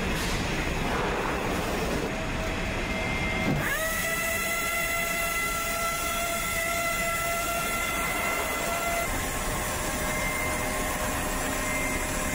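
Steel-strip processing line machinery running with a constant rumbling noise. About three and a half seconds in, a whine starts with a quick upward slide and holds as a chord of steady tones, which shift slightly about nine seconds in.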